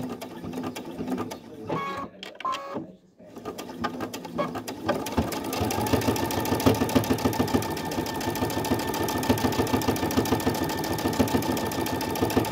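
Brother Innov-is V5 computerised sewing machine stitching through fabric: it runs briefly, stops for a moment about three seconds in, then speeds up into a steady fast stitch with an even motor whine from about six seconds on.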